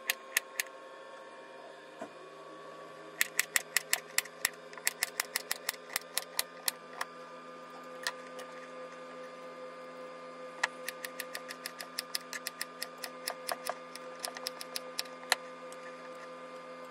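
Kitchen knife slicing a carrot into rounds on a cutting board: runs of quick sharp taps, about five a second, with pauses between the runs. A steady low hum sits underneath.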